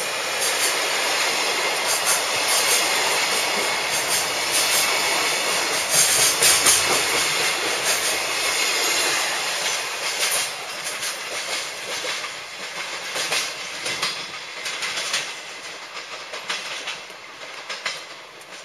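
Container freight train's wagons rolling past close by, wheels clattering over the rail joints. The last wagon passes about ten seconds in, and the clatter fades as the train pulls away.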